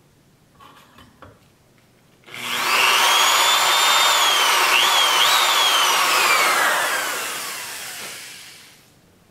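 Corded electric hand drill spinning up with a rising whine and running steadily as its bit cuts a set-screw dimple into an AR-15 barrel through a dimpling jig. The pitch dips briefly twice, then falls steadily as the drill winds down after the trigger is released. A few light handling clicks come before it starts.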